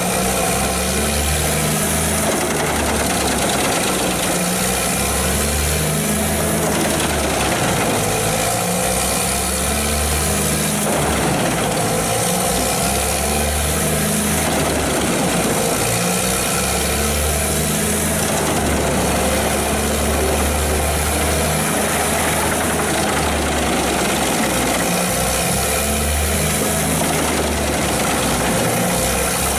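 Large mobile wood chipper running with its heavy diesel engine under load, a steady loud hum that swells and eases every few seconds as wood is fed into it.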